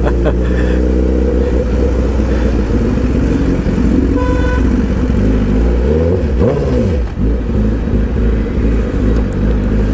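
Honda CBR1000RR Fireblade's inline-four engine running at low road speed in traffic, heard from the rider's seat; the revs dip and rise again about six seconds in.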